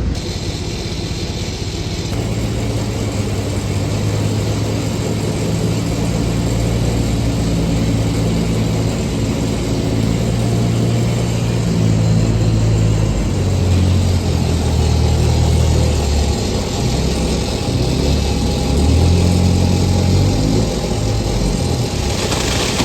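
Heavy diesel engine running, its speed rising and falling several times.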